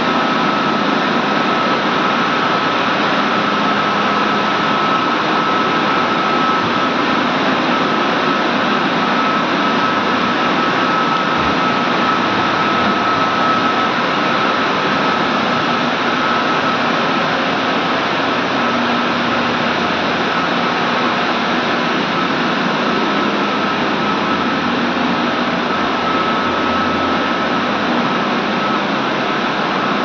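Steam boiler room machinery running, a loud steady mechanical noise with a constant high whine through it.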